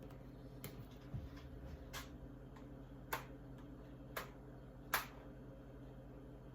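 A few sharp, light clicks about a second apart, the last one the loudest, from small snowman decoration pieces being handled and set against a refrigerator door.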